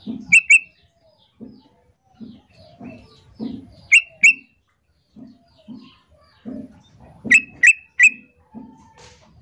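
Female yellow-vented bulbul (trucukan) calling: short, sharp notes in quick pairs and a triple, repeated every few seconds. This is her call to male trucukan.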